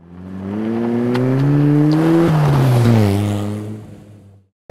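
A motor vehicle's engine passing by: its pitch climbs as it approaches, drops sharply a little over two seconds in as it goes past, and the sound fades out near the end.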